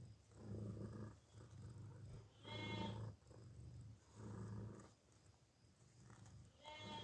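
Mother cat purring in a rhythmic cycle of breaths, about one a second, with two louder, more voiced purrs, one about three seconds in and one at the end.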